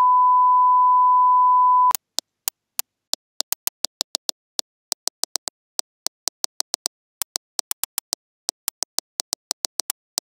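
A steady, high, pure test-tone beep that cuts off about two seconds in, then a run of short, sharp clicks, several a second at uneven intervals: an online chess board's piece-move sounds as moves are played in quick succession.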